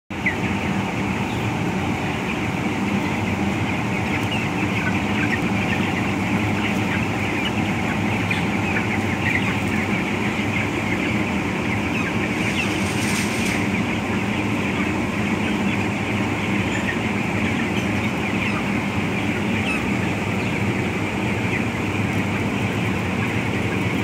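A large flock of young broiler chickens peeping and clucking all at once, a dense, continuous chatter of many short chirps. Underneath runs the steady hum of the house's ventilation fans.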